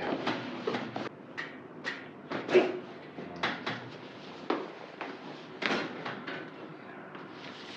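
An irregular series of short, sharp knocks and thumps, about a dozen over several seconds, the loudest about two and a half seconds in. These are the hands, body and treatment table at work during a chiropractic adjustment.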